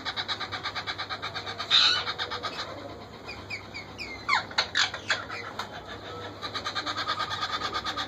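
Indian ringneck parakeet chicks begging while being fed by the parent, a fast, even pulsing call at about seven beats a second. It breaks off after a loud short squawk, then gives way to a run of short falling squeaks before the pulsing begins again.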